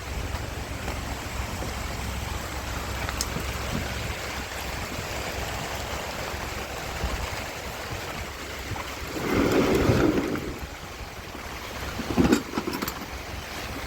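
Steady rain falling, with a low rumble underneath. The sound swells louder for about a second around nine seconds in, and a couple of sharp knocks come near the end.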